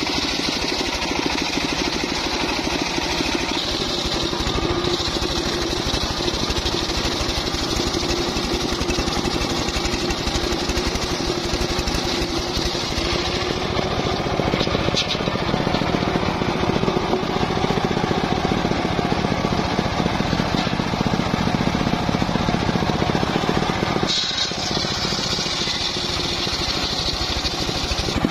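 Homemade engine-driven circular sawmill ripping teak logs: the engine runs steadily under the high-pitched noise of the blade cutting the wood. The sound shifts abruptly about 14 and 24 seconds in.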